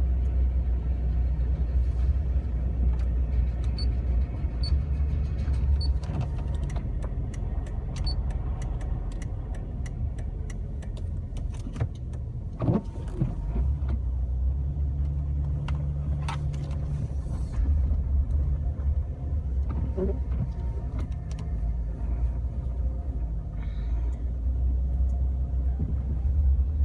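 Jeep Wrangler TJ driving on a snowy road: a steady low rumble of engine and tyres that rises and falls a little with speed. There is a run of small clicks about a quarter of the way through, and one sharp knock about halfway.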